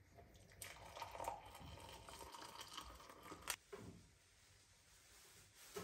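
Hot water poured faintly from a stainless electric kettle into a glass mug over a chamomile tea bag, for about three seconds, followed by a sharp click.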